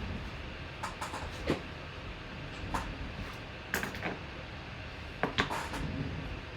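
Scattered light clicks and knocks, about a dozen at uneven intervals, from objects being handled on a table, over a low steady background hum.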